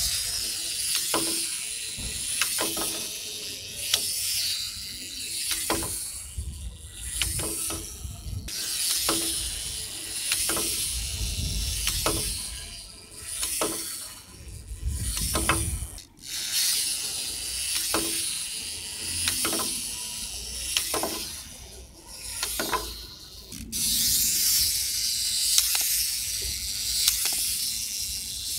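Wind-up clockwork hopping cow toy, repeatedly wound with ratchet clicks and released, its spring mechanism whirring while the plastic toy hops with clicks and taps. This runs over several short takes.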